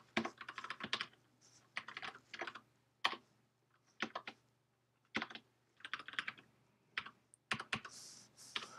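Typing on a computer keyboard: short runs of quick keystrokes broken by pauses of up to a second.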